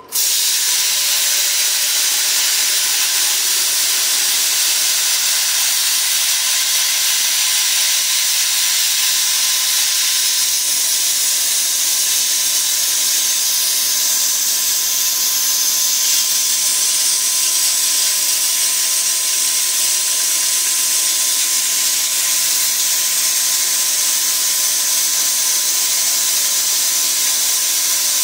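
Plasma cutter torch cutting thin sheet metal at its lowest setting: a loud, steady hiss of air and arc that starts suddenly, with a faint steady whine under it.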